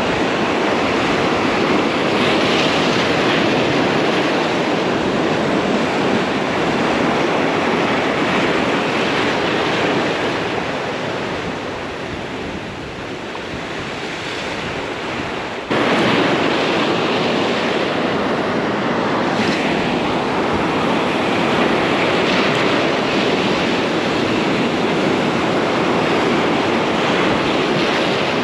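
Heavy surf breaking and washing over a boulder shore in a rough sea, a loud steady rushing wash with wind buffeting the microphone. The wash eases for a few seconds and then jumps back up sharply about halfway through.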